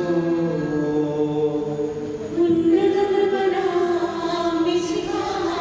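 Voices singing a slow funeral hymn, holding long notes that step from one pitch to the next.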